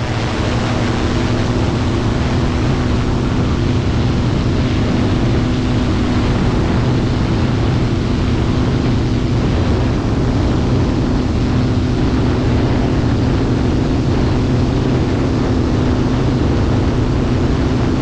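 Multirotor drone's electric motors and propellers hovering, a steady loud hum over a rushing noise, picked up close by a camera hung beneath the rotors.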